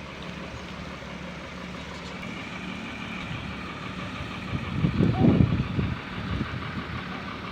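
Heavy-equipment engine running steadily at low speed. About five seconds in, a loud burst of low noise lasts about a second.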